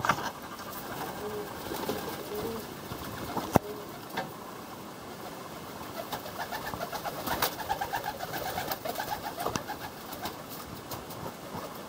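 A flock of young Serbian highflyer pigeons in a small loft: low cooing calls, wing flapping as birds flutter up, and a few sharp clicks.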